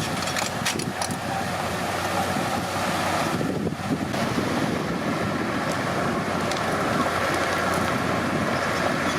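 Komatsu D31P bulldozer's diesel engine running steadily under work, with a few sharp metallic clanks.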